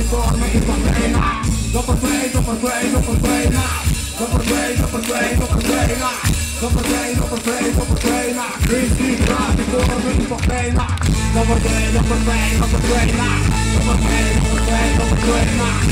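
Live rock band with trumpet and trombone playing loud through a festival PA, with electric guitars, bass guitar and drums. The band hits short stop-start accents for several seconds, then falls back into a steady, driving groove about halfway through.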